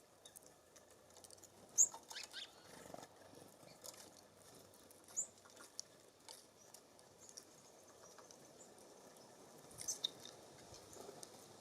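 Small songbirds at a feeder giving a few short, high chip calls, the loudest about two seconds in and again near ten seconds, amid scattered light ticks and taps.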